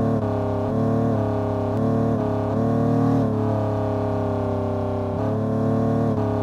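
Music with sustained pitched notes that change every second or so, over a steady low hum.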